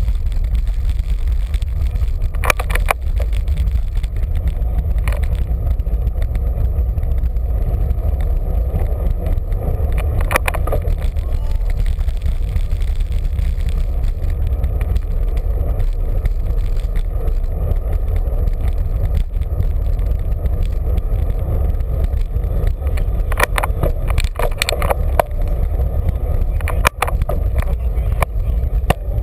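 Steady low rumble of wind and road noise on the microphone of a camera riding on a moving bicycle, broken by a few short clicks or rattles.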